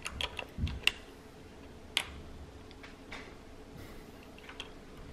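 Scattered small clicks and taps of a scooter's plastic handbrake lever and the metal end of its brake cable being handled while the cable is threaded into the lever: several clicks and a soft low bump in the first second, a sharper click about two seconds in, then a few faint ones.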